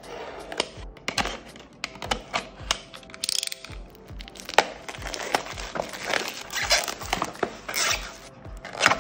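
Clear plastic shrink-wrap on a cardboard box being slit with a utility knife and then torn and peeled off by hand: a run of sharp crinkles, crackles and snaps.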